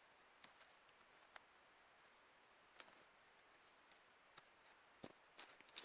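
Near silence, broken by a dozen faint, irregular clicks and ticks, a little louder near the end.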